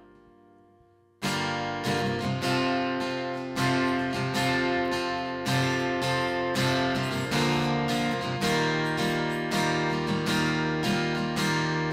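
Acoustic guitar strummed in a steady rhythm, starting suddenly about a second in as the intro of a worship song.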